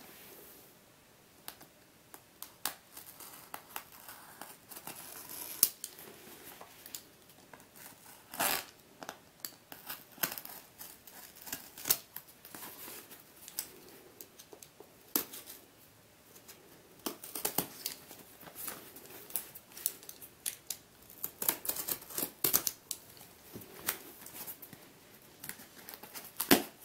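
Snap-off utility knife slitting packing tape on a cardboard parcel, then the tape tearing as the box is pulled open: an irregular series of sharp scrapes, clicks and cardboard rustles.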